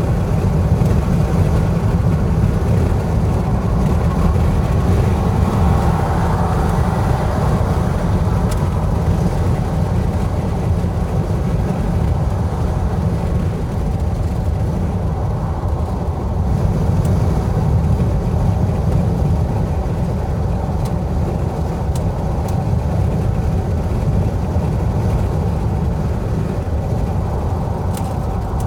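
Steady road noise of a car driving at highway speed: a constant low rumble of tyres and engine, with a brief rise in higher hiss about six seconds in.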